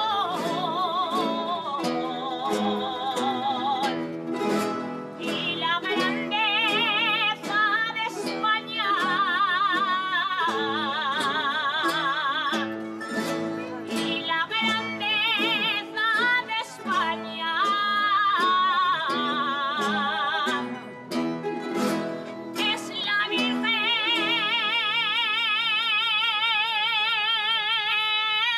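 Aragonese jota sung live with wide vibrato in long, held, ornamented phrases, over plucked guitar-type strings. The voice drops out for a short instrumental passage about two-thirds of the way through, then comes back.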